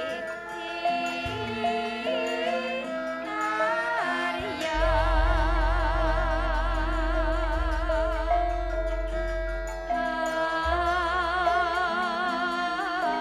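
Javanese gamelan music with female sindhen singers, their voices wavering in heavy vibrato over steady metallophone tones and deep low notes.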